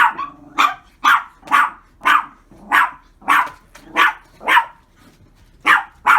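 A pet dog barking in a steady run of short, sharp barks, about two a second, pausing for about a second near the end before barking twice more.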